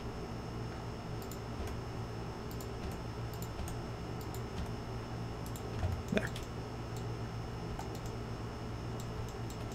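Light computer keyboard typing and mouse clicks, scattered and irregular, over a steady low hum, with one slightly louder brief sound about six seconds in.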